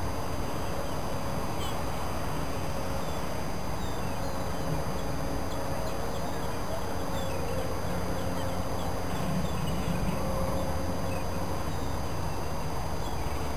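Steady hum and rumble of dockside machinery from a material-handling crane loading ball clay into a cargo ship, with a faint steady tone running under it. Scattered bird calls are heard over the hum.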